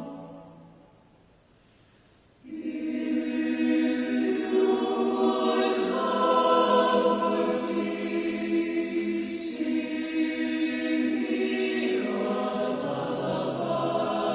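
Earlier music fades out, and after a second or so of near silence a choir starts singing about two and a half seconds in, holding long, sustained notes.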